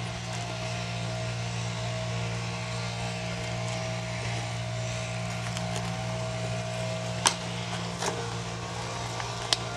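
A steady low motor hum holding two constant pitches, with a few sharp clicks in the second half.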